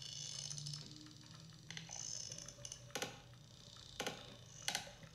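Sperm whale clicks: a few sharp, separate clicks roughly a second apart in the second half.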